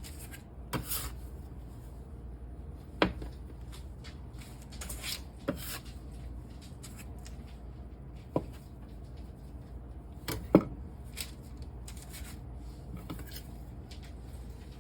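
Kitchen handling while cut biscuit dough pieces are shaped into squares on a baking tray: about five sharp separate knocks and taps, the loudest near the end, with soft rustling in between.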